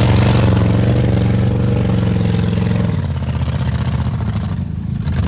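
Dodge Durango engine running hard at high revs as the SUV drives and spins its wheels through mud, then easing off about three seconds in.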